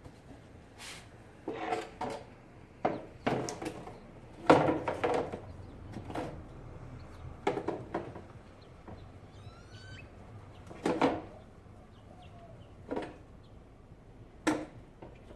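Plastic airbox parts being handled and fitted in a car's engine bay: irregular knocks, clunks and rattles, the loudest about four and a half seconds in.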